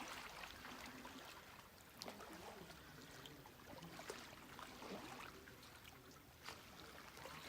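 Very quiet waterside ambience: faint, irregular small water sounds, soft drips and light lapping, over a low hiss.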